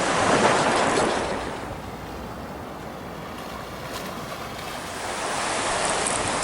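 Wind rushing over the microphone together with breaking waves and washing water. It swells in the first second and a half, eases off through the middle and builds again near the end.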